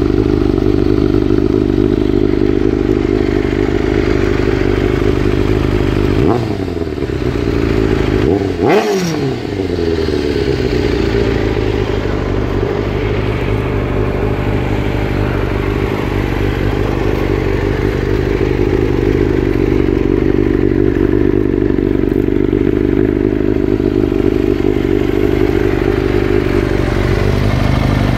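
Kawasaki ZX-6R inline-four sport-bike engine idling steadily through an aftermarket slip-on exhaust, with brief throttle blips about six and nine seconds in and a small one near the end.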